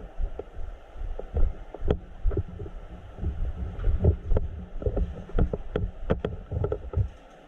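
Irregular low thumps and knocks of footsteps and gear moving against a body-worn camera as a player walks, with a few sharper clicks.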